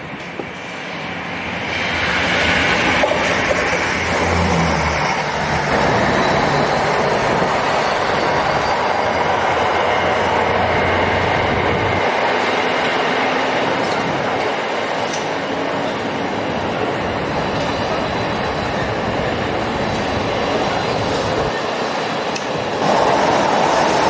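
GB Railfreight Class 66 diesel locomotive hauling a container freight train past, its two-stroke diesel engine running, followed by a long steady rumble and clatter of the wagons' wheels on the track. The noise steps up again near the end.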